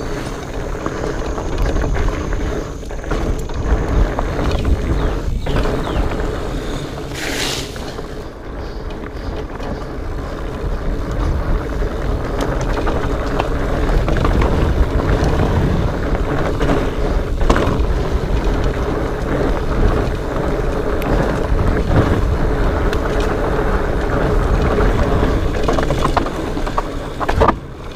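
Specialized Fatboy fat bike rolling over a rocky trail: a steady rumble of the fat tyres and wind on the microphone, with frequent clicks and rattles from the bike over rocks and roots. A brief hiss about seven seconds in.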